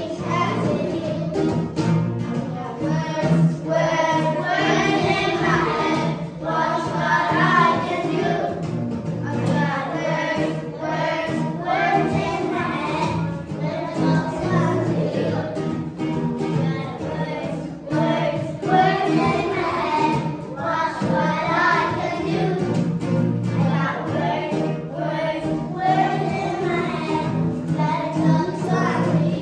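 A group of young children singing an action song about peace together, over recorded musical accompaniment.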